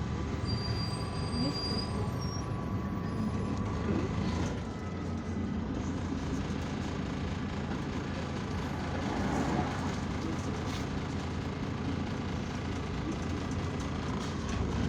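Irisbus Citelis 12M city bus under way, heard from inside the cabin: steady engine and road noise with a constant thin whine, easing briefly about four and a half seconds in.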